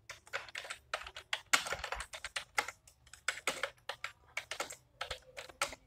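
Typing on a computer keyboard: an irregular run of keystrokes, several a second, with brief pauses between words.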